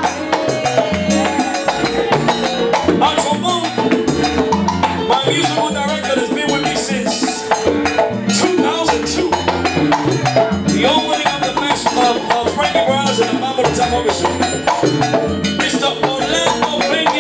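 Live salsa band playing a steady instrumental groove, with horns, piano, bass and Latin percussion.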